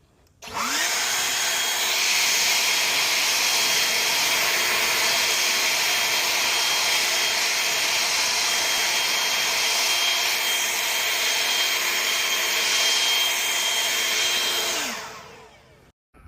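EGO cordless electric lawn mower started with its push button: the motor and blade spin up within half a second to a steady whine and run at constant speed for about fourteen seconds, then wind down to a stop when released.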